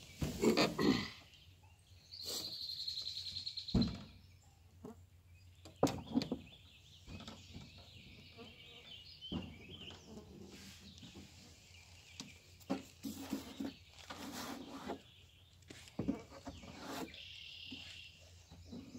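Knocks and thumps of a person climbing into a canoe and shifting about in it, the loudest just under a second in. Birds call in the background, with a rapid high trill from about two to four seconds in.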